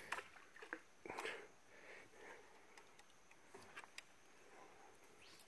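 Near silence, broken by a few faint clicks and soft rustles.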